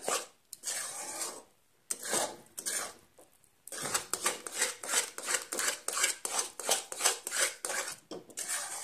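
Metal spatula stirring and scraping thick banana halwa around a stainless-steel kadhai, mixing in the sugar just added, in quick repeated scraping strokes. Two short pauses come about a second and a half in and about three seconds in, then the strokes run on without a break.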